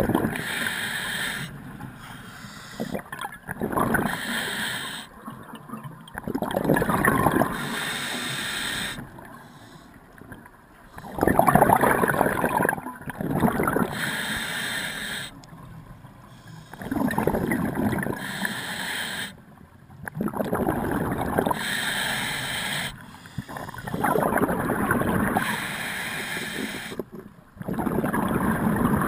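Scuba diver's breathing through the regulator, heard underwater through the camera housing: a loud bubbling gurgle of exhaled air about every four to five seconds, with quieter stretches between.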